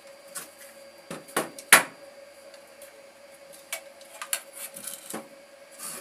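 Irregular knocks and clicks of a small power transformer and its wires being handled and fitted into a metal amplifier chassis, the loudest knock a little under two seconds in. A faint steady hum runs underneath.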